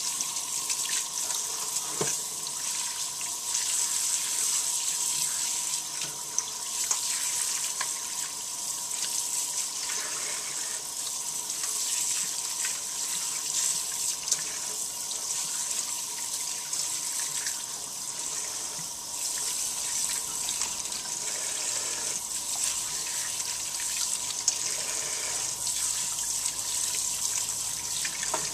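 Kitchen faucet running steadily into a stainless steel colander of raw chicken wings, water splashing as hands rinse and turn the wings, with a few faint clicks.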